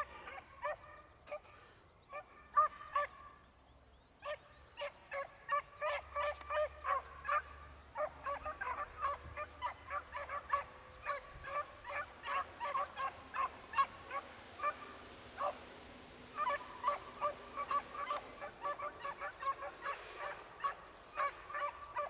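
A pack of beagles baying as they run a rabbit's track: many short, pitched yelping cries, several a second, with an unbroken steady high-pitched whine underneath.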